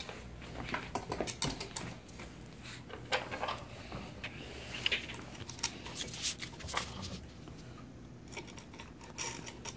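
Irregular light metallic clicks and taps as a bolt and nut are handled and fitted into the slots of a mini lathe's steel casting.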